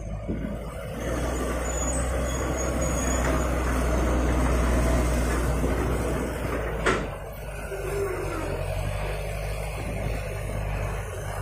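Diesel engines of a Hitachi hydraulic excavator and a dump truck running steadily as the excavator loads soil. A single sharp knock comes about seven seconds in.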